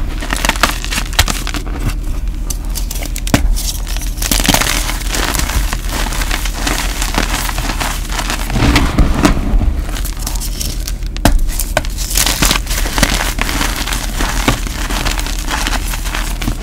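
Gym chalk crushed and crumbled between the fingers into a pile of chalk powder: continuous dense crunching and crackling, with a sharper snap about three seconds in and again near the middle.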